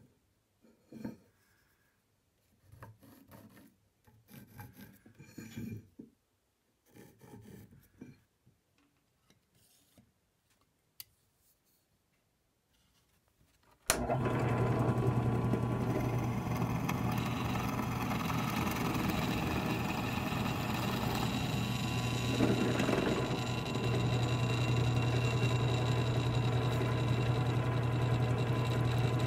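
Light scratching and tapping as a wooden blank is marked out against a metal square, then, from about halfway through, a drill press running with a steady low hum, its bit boring into the wood to cut a mortise.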